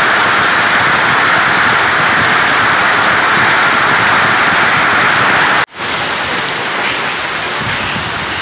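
Heavy hail pelting down in a dense, steady rush of noise. It cuts off abruptly about six seconds in and resumes a little quieter and duller as the same hailstorm.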